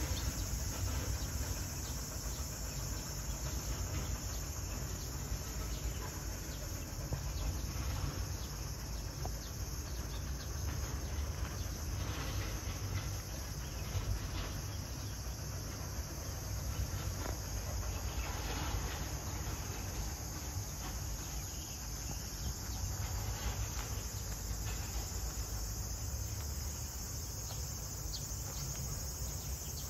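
Insects chirring in a steady, high, unbroken drone, over a low rumble.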